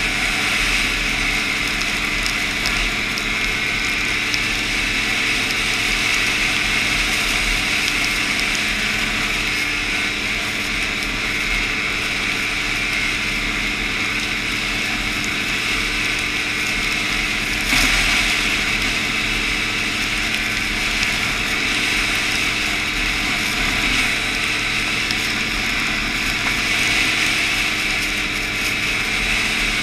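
Snowmobile running steadily on the trail, an even engine drone under a constant hiss of track and snow. About eighteen seconds in there is one brief louder knock.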